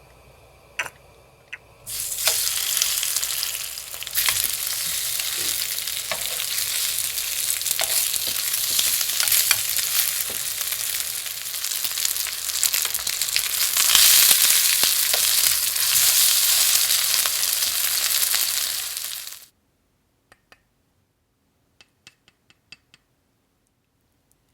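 Breaded pork cutlet frying in hot oil: a loud, steady sizzle that starts suddenly about two seconds in and cuts off abruptly a few seconds before the end, followed by a few faint clicks.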